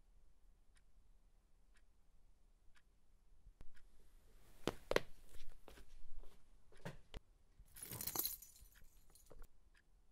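Analogue alarm clock ticking faintly, about once a second. Then, from about three and a half seconds in, a run of knocks and rustling handling noises, loudest about eight seconds in.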